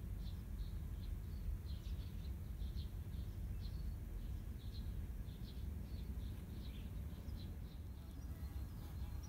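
Small birds chirping, short high calls repeating about twice a second, over a low steady background rumble.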